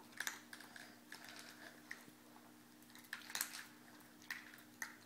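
Chihuahua eating from a plastic bowl: scattered crunches and small clicks against the bowl, a quick cluster of them a little over three seconds in, over a faint steady hum.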